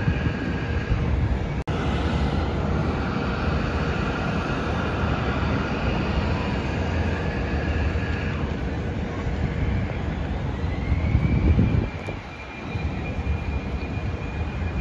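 Jet aircraft engines running at the airport: a steady rumble, with a whine that rises about ten seconds in and then holds.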